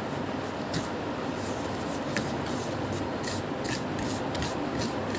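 Stirring a gritty homemade salt-and-toothpaste play-clay mixture: steady scraping and rubbing with irregular light clicks.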